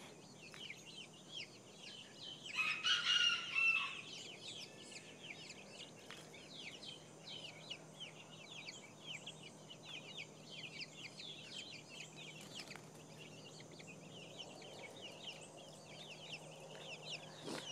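Silkie chicks peeping: a steady stream of short, high chirps, with one louder, longer call about three seconds in.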